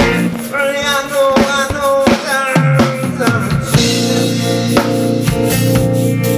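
Music with a drum kit keeping a steady beat under a melody line; a fuller, held bass and chord layer comes in about two and a half seconds in.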